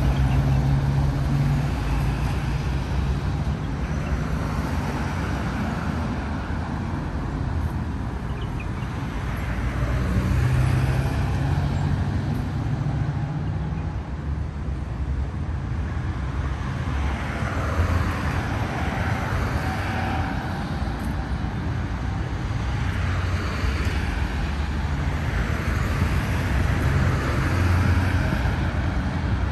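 Road traffic: a steady rush of car tyres and engines, swelling several times as vehicles drive past.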